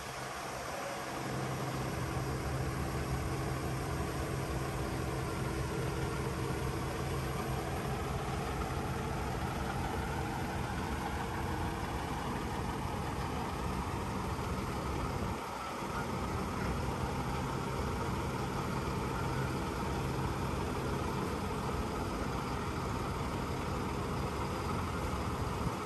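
Scania truck's diesel engine running steadily while it powers the Fassi knuckle-boom crane lowering a jet ski, with a fainter whine that rises slowly in pitch through the middle. The engine sound dips briefly a little past halfway.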